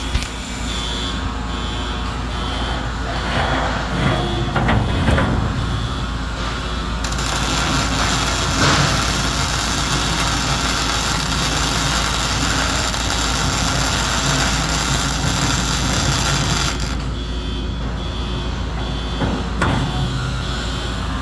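Welding arc on stainless steel, a dense steady hiss that starts about a third of the way in and stops sharply after about ten seconds, over a steady low workshop hum.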